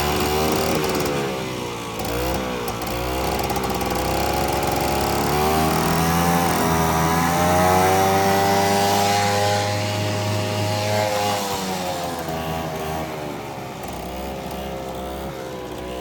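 Small carbureted engine of a ride-on machine running after its fuel feed to the carburetor has been fixed, revving up and down. It is highest from about the middle on, then settles lower near the end.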